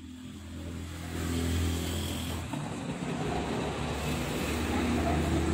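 A motor vehicle's engine running steadily, growing louder about a second in and then holding.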